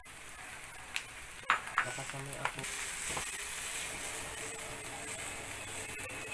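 Sliced tomatoes hitting hot olive oil in a frying pan of onion, garlic and sliced longganisa, sizzling steadily as they are stirred. A few sharp knocks of the utensil against the pan come in the first two seconds.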